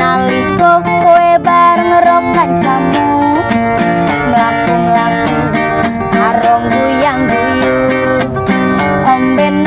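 Acoustic guitar playing a song, with a melody line that slides up and down in pitch over it.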